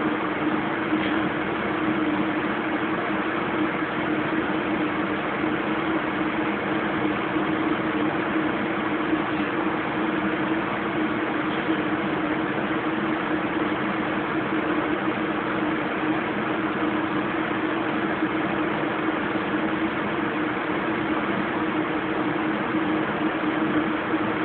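Kenmore Oasis top-load washing machine running a high-speed spin: a steady machine hum with an even whir over it, unchanging throughout.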